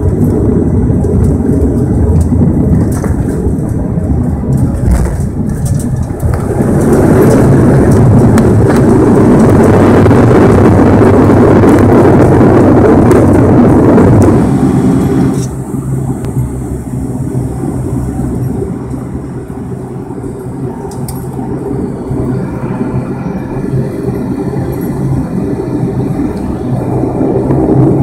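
Bombardier Q400's Pratt & Whitney PW150A turboprops and propellers heard from the cabin during the landing roll: about six seconds in the sound swells to a loud rush, as with reverse thrust, then drops sharply about halfway through to a lower steady drone with tyre rumble as the aircraft slows. The engine noise rises again near the end.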